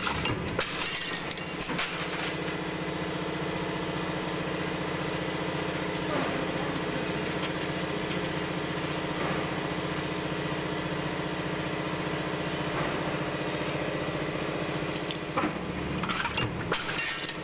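Stamping press running with a progressive deep-drawing die, its drive giving a steady mechanical hum. Sharp metallic clanks come in the first couple of seconds and again near the end.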